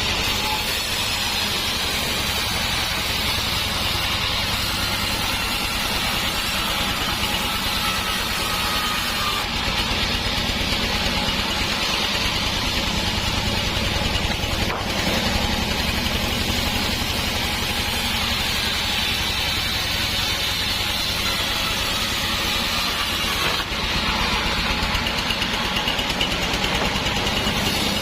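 Sawmill band saw running steadily, a continuous engine-like mechanical drone that barely changes, with one brief dip in level near the end.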